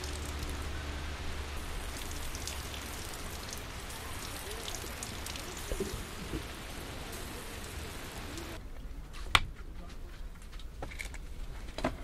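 Rain falling steadily on wet grass and ground, an even hiss dotted with drop impacts. About eight and a half seconds in it cuts off abruptly to a much quieter background, broken a second later by a single sharp knock.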